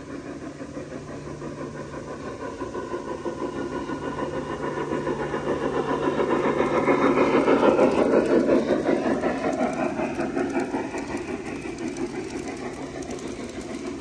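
G-scale model trains rolling along garden-railway track: a dense clatter of wheels on rails over a low steady hum, growing louder to a peak about eight seconds in as the cars pass close, then fading.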